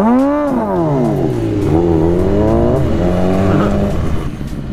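Inline-four sport bike engine accelerating away from a stop: the revs climb sharply, ease off, climb again, then drop suddenly at an upshift about two and a half seconds in and settle.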